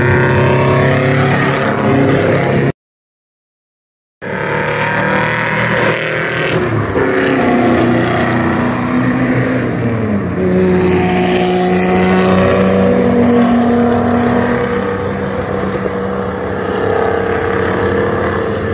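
Race cars' engines running on the circuit, several at once, their pitch rising and falling as they accelerate, shift and pass. The sound cuts out completely for about a second and a half about three seconds in.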